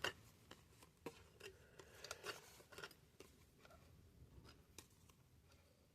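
Faint, scattered clicks and light rustles of trading cards being handled and shuffled on a table, with quiet room tone between.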